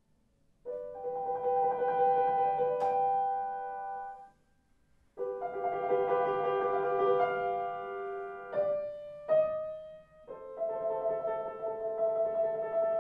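Solo grand piano playing slow classical phrases of sustained chords, broken by short pauses, the longest of them about four seconds in.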